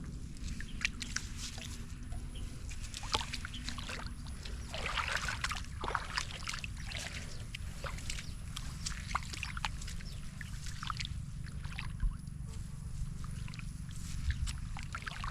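Shallow floodwater splashing and sloshing in short, irregular bursts, busiest around five seconds in, over a steady low rumble.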